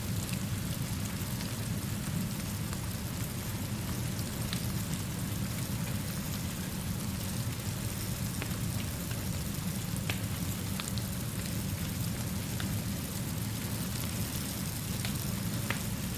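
Steady rainfall mixed with a gentle fire, over a low steady rumble, with occasional sharp clicks scattered through it.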